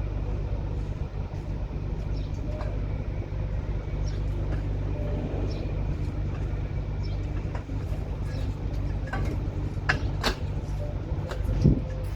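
Steady low engine rumble from a motor vehicle, with scattered sharp clacks of bricks knocking together as they are handled. The clacks come closer together and louder near the end.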